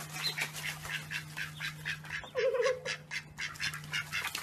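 Duckling peeping rapidly and insistently, short high peeps about five a second, with one brief lower wavering duck call about halfway through, over a faint steady hum.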